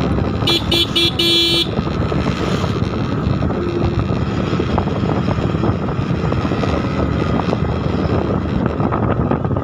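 A vehicle horn toots three times in quick succession about half a second in, the last toot a little longer. Under it, steady wind on the microphone and engine and road noise from riding along the road.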